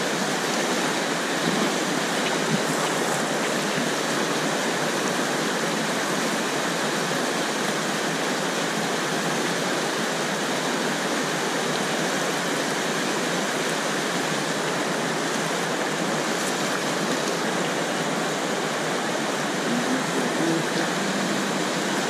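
Whitewater rapids rushing steadily around a kayak, heard close at water level.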